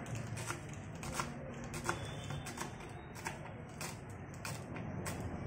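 Knife chopping fresh spinach leaves on a wooden cutting board: short sharp cuts at an even pace, about three every two seconds.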